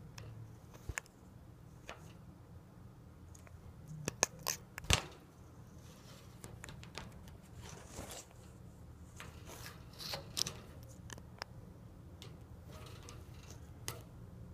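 African grey parrot biting and chewing: scattered clicks and crunches from its beak, with a cluster of sharper clicks about four to five seconds in, over a steady low hum.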